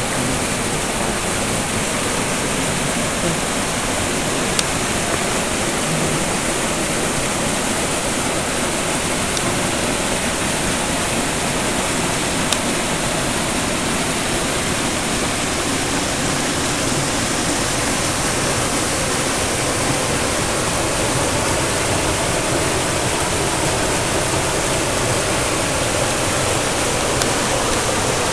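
Small mountain creek rushing and splashing over boulders in little cascades: a steady, unbroken water rush.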